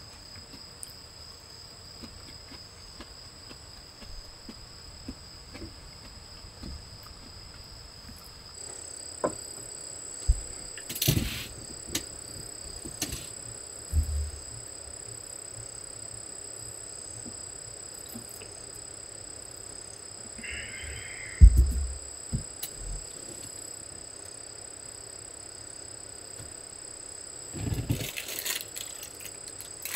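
Light handling sounds of eating at a wooden table: scattered small knocks and clatters, the loudest a sharp thump about two-thirds of the way through, and a burst of rustling near the end as things are reached for on a shelf. A faint, steady, high-pitched tone sits underneath throughout.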